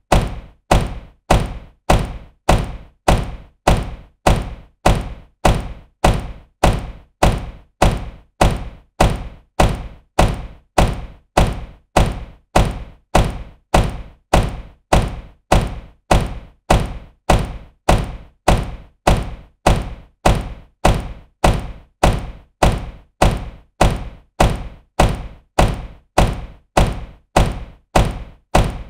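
A car door being shut with a solid, deep thunk. The same slam repeats over and over at a steady, quick pace, each one dying away fast.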